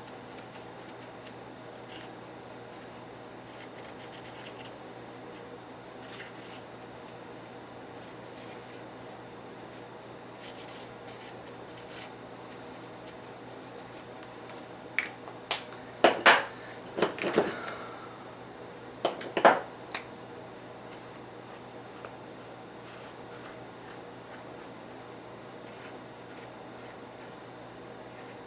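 Light rubbing and scratching of hands working on paper craft materials, with a cluster of sharp clicks and knocks a little past the middle.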